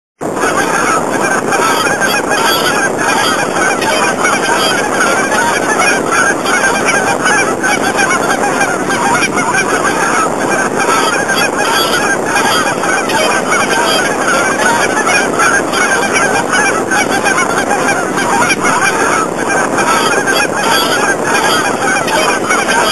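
Large flock of gulls calling continuously, many cries overlapping into a dense, loud clamour.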